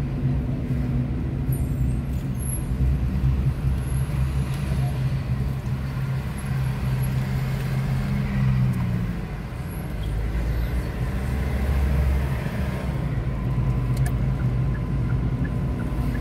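Car engine and road noise heard from inside the cabin while driving slowly in city traffic: a steady low hum. A bus passes close alongside about halfway through.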